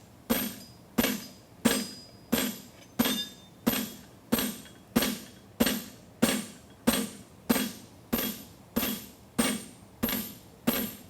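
Hand hammer striking a hot steel bar shoe on an anvil in a steady rhythm, about three ringing blows every two seconds, flattening and widening the forge-welded bar of a horseshoe.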